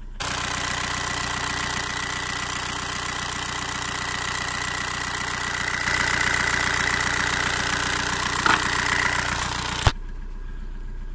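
1.9 TDI diesel engine idling steadily at about 900 rpm with a fast, even ticking, heard close to its rotary injection pump while the pump's timing adjuster is being set. Near the end the sound drops suddenly to a quieter idle.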